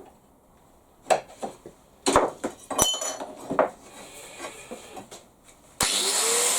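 Metal parts and tools clinking and knocking on a workbench, several separate hits with a short metallic ring. Near the end a power tool switches on suddenly, its motor spinning up with a rising whine and a steady loud rush.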